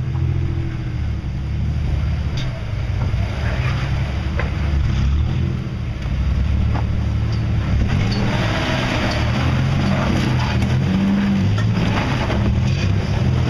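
Off-road rig's engine running at low speed and revving up and down as it crawls over rocks, with scattered knocks and scrapes; the sound grows rougher and louder from about eight seconds in.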